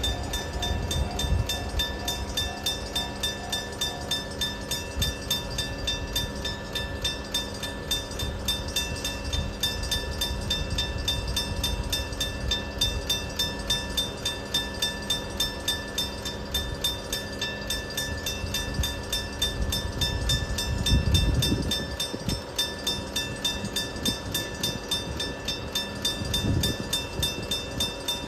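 Electric bell of a railway level crossing ringing continuously, its clapper striking rapidly against the gong. A low rumble swells briefly about 21 seconds in.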